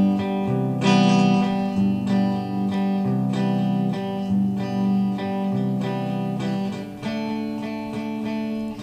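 Acoustic guitar strumming steady chords: the instrumental opening of a folk song, just before the singing comes in.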